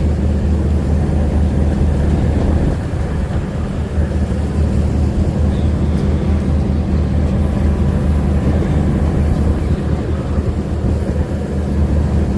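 A fishing boat's engine running steadily with a constant low drone.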